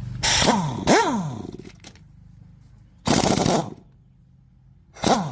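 Small two-stroke scooter engine idling and being revved in four short blips, the revs falling quickly back to idle after each.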